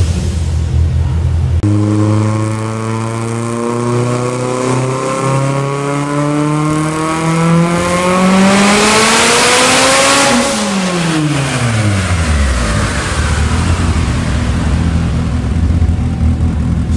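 Turbocharged Mitsubishi Mirage engine, fitted with a 6466 turbo and running on E85, on a chassis dyno. It idles, then makes a dyno pull with the engine note rising steadily for about eight seconds, loudest near the top. The throttle then closes and the revs fall back to idle.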